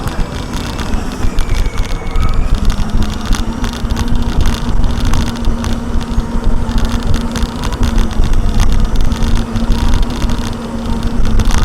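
A car on the move: a steady engine drone over a loud, uneven rumble of road and wind noise.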